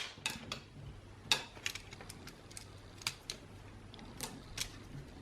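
Small plastic clicks and taps, about a dozen at irregular intervals, from the parts of an Xbox One controller being handled and pried apart by hand.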